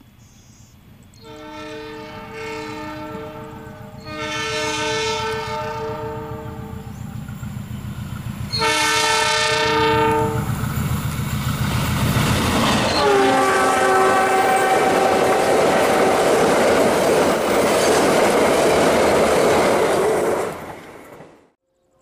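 Multi-tone air horn of a KAI GE CC206 diesel locomotive sounded in three long blasts as the train approaches at speed, then a fourth blast that drops in pitch as the locomotive passes. It is followed by the loud rush and rumble of the passing wagons, which cuts off suddenly near the end.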